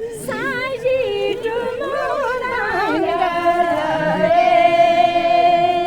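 Women singing a traditional Zanskari wedding song unaccompanied, with a wavering, ornamented melody that settles into a long held note for the last few seconds.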